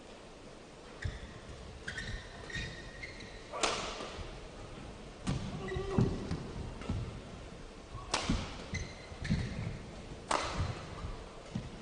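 Badminton doubles rally: rackets striking the shuttlecock with sharp cracks, three of them much harder than the rest, among lighter thuds of footwork and brief shoe squeaks on the court.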